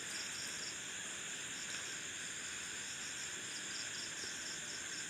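Crickets chirping, a high pulsing trill repeating several times a second.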